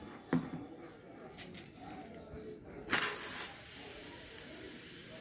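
A few light clicks and taps of tools on the wheel. About three seconds in, a sudden steady hiss starts: air rushing out of the tubeless rear tyre through the puncture as the screw plugging it comes free.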